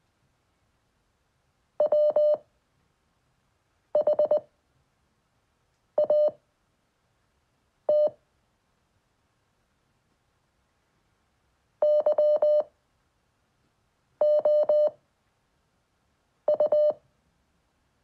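Computer-generated Morse code from the LCWO training website: single-pitch beeps sent slowly at 5 words per minute, one letter about every two seconds. They spell W, H, A, T, then after a longer word gap Y, O, U.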